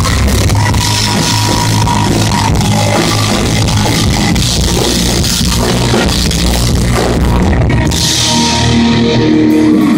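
Live rock band playing loud: distorted electric guitars, bass guitar and drum kit. Near the end the drumming stops and a held chord rings on with a cymbal wash.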